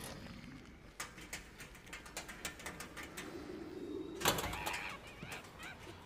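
Alien spider creatures, a film sound effect: rapid irregular clicking like many small legs skittering, building to a sudden loud hissing burst about four seconds in, followed by warbling, chirping chatter.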